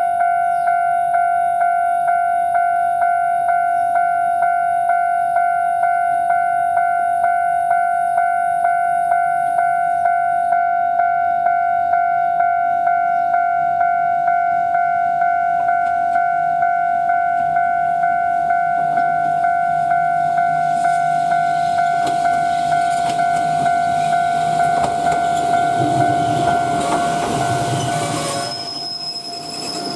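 Level-crossing warning bell ringing steadily at about two strikes a second as a Choshi Electric Railway electric train approaches, its running noise growing louder through the second half. A brief high squeal sounds near the end as the train pulls in.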